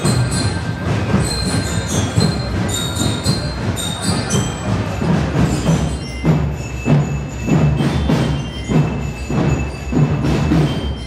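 Street marching band (banda de paz) playing, with a ringing bell-lyre melody over drums; the drum beat becomes steady and prominent in the second half.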